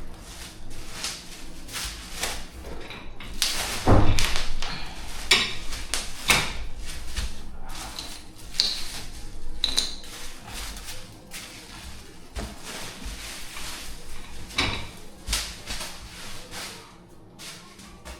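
Stock caster wheels being worked loose and pulled out of a gaming chair's base: irregular knocks, clicks and scraping of plastic against metal, with a sharp knock about four seconds in.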